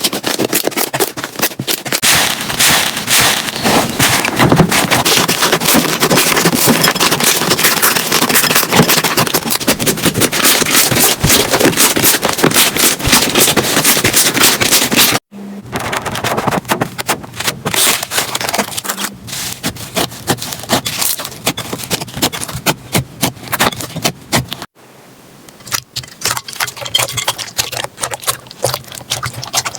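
Slime being squeezed and worked, giving dense, loud crackling and popping clicks. The sound cuts off abruptly about halfway through and twice switches to sparser, quieter clicking.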